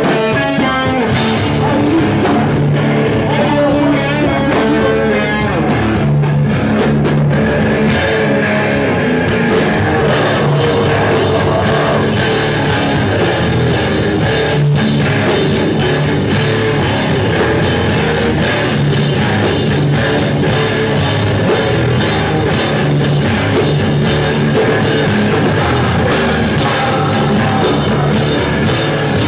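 A hardcore band playing live and loud: distorted electric guitars and a drum kit. The drums and cymbals fill in fully about ten seconds in.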